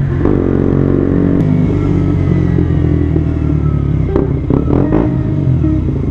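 KTM 125 Duke's single-cylinder four-stroke engine running through an aftermarket Akrapovic exhaust as the bike rides along. There is a brief dip in the sound right at the start, and the engine note wavers quickly about four to five seconds in.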